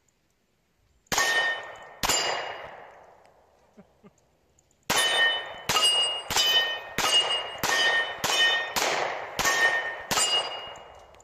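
Eleven shots from a Smith & Wesson M&P40 2.0 pistol in .40 S&W: two shots about a second apart, a pause of about three seconds, then nine more in a steady string about two-thirds of a second apart. Steel plate targets ring with a clear, lingering clang after the shots.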